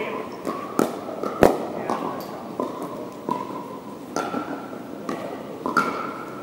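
Pickleball paddles striking balls, sharp pops coming irregularly about once a second from rallies on several courts and echoing in a large gym hall; the loudest pop comes about a second and a half in.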